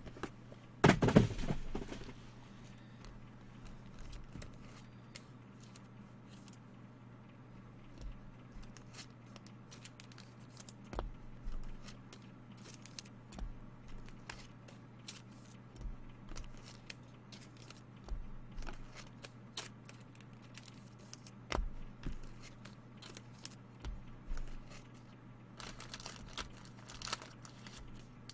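Trading cards and wrappers being handled on a table: a short burst of crinkling about a second in, then scattered soft taps and rustles as cards are shuffled and set down, over a steady low hum.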